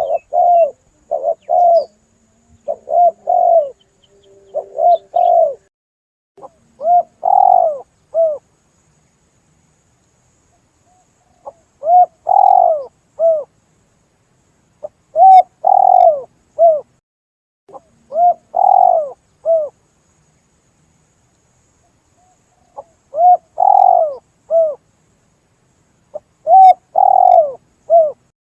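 Spotted dove (tekukur) cooing: phrases of three or four coos repeated every few seconds with short silent pauses between, used as a lure call to draw in wild doves.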